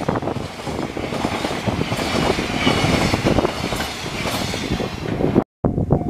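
Freight train passing close at speed, its wagons' wheels clattering on the rails. The sound cuts off suddenly about five and a half seconds in.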